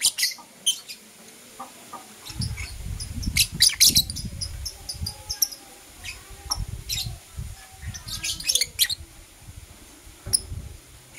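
Lovebirds chirping in short, sharp, high bursts that come in clusters. Under the chirps, from about two seconds in until near the end, runs an uneven low rumble with thumps.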